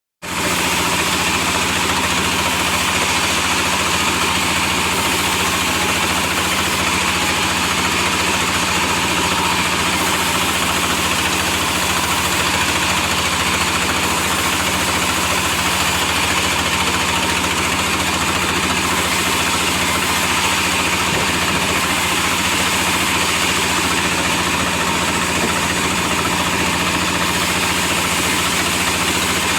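Log sawmill machine running with a steady, unchanging mechanical drone, starting abruptly.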